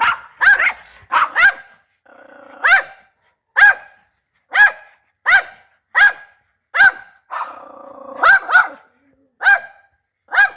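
A dog barking repeatedly in short, sharp single barks, about one a second with a quick double bark early on, and a low growl between barks about two seconds in and again around seven seconds.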